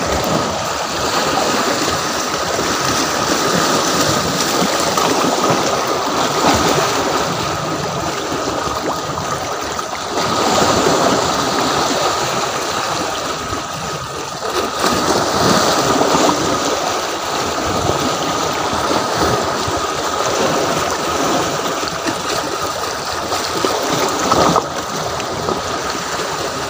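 Shallow sea water washing and lapping against shoreline rocks and a concrete wall: a steady rush of small waves that swells a little now and then.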